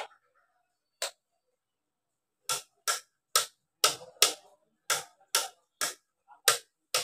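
Plastic rocker switch on a series-lamp test board clicked on and off over and over, a single click about a second in and then about two clicks a second. No motor hum follows any click: the mixer grinder's motor does not start even with its switch bypassed.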